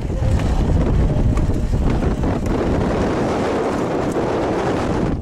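Strong wind blasting across the camera microphone: a loud, dense rumble of wind noise that stays steady throughout.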